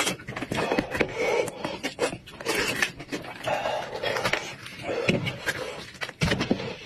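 Close mouth sounds of chewing and smacking on roasted goat-head meat, with wet tearing and scraping as the meat and bone are pulled apart by hand; a rapid, irregular run of short clicks and squelches.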